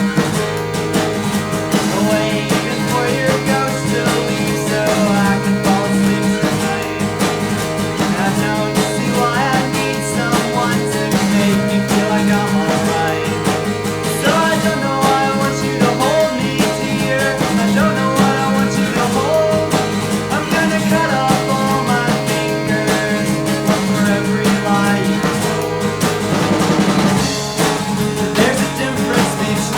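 Instrumental rock music, guitar-led, with full sustained chords. A rising sweep comes near the end.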